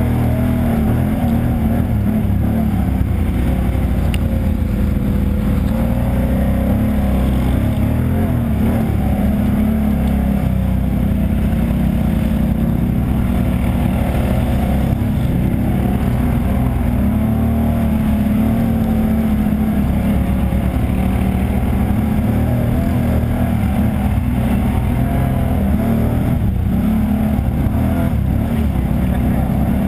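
ATV engine running under way, its pitch rising and falling as the throttle is worked along the trail.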